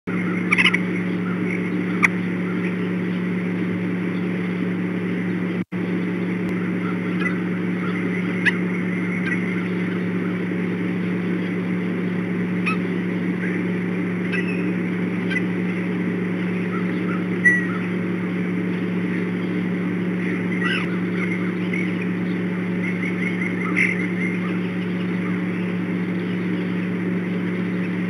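Scattered short bird calls and chirps, some in quick runs of repeated notes, over a steady low hum, with a brief cut-out of all sound about six seconds in.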